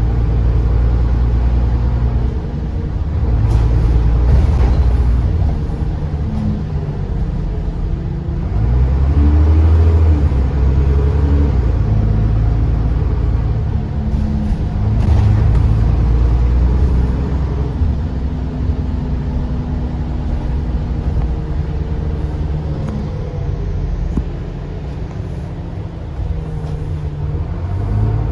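Bus diesel engine heard from on board, pulling away in loud surges that rise and drop back several times, as under hard acceleration with the automatic gearbox changing up.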